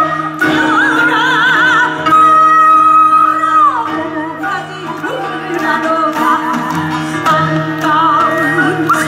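Traditional Korean music: a melody with wide vibrato over a steady low drone, one long held note sliding down about three and a half seconds in.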